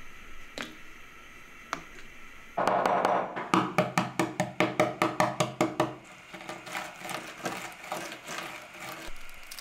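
A boiled egg being cracked on a wooden cutting board. A loud crunch comes about two and a half seconds in, then a quick run of sharp taps, about five a second, then softer crackling as the shell breaks up under the palm.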